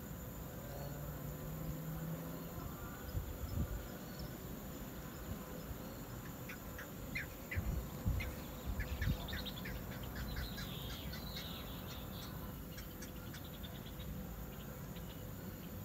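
Outdoor evening insect chorus with a steady high trill, joined from about six seconds in by a bird giving a run of short, quickly repeated chirps. A few low thumps stand out, once early and a cluster about halfway through.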